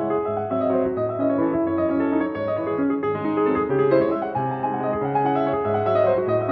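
Background piano music: a steady, flowing piece of held notes over a recurring bass note.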